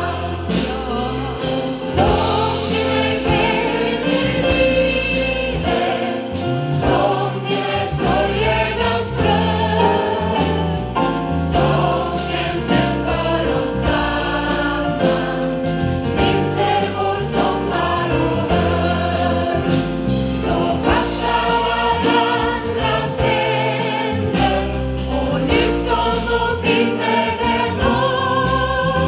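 Amplified choir singing an upbeat song with a female soloist on microphone, backed by keyboard and drums in a steady beat.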